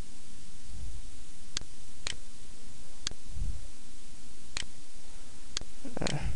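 Computer mouse clicking, about five single sharp clicks spaced unevenly, over a steady microphone hiss.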